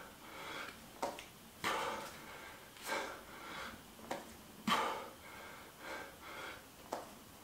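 A man's hard, effortful breathing during push-ups: sharp, noisy breaths in and out in a steady rhythm, a loud one every second or so, paced with the repetitions. This is the strain of the mid-70s reps in a 100 push-up set.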